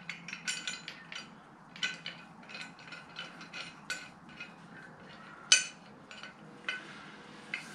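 Light metal-on-metal clinks, taps and scrapes as a steel square-tube lifting bar and its ring fitting are handled and fitted on a lathe-style chuck, with a sharper metallic clack about five and a half seconds in.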